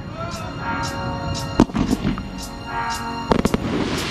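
Aerial firework shells bursting over music with sustained tones: a sharp report about a second and a half in, another just after, and a quick cluster of reports near the end.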